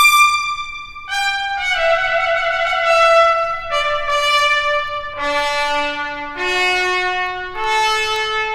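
Solo trumpet playing a slow line of held, bright notes, each a second or two long, stepping down in pitch and then climbing back up near the end.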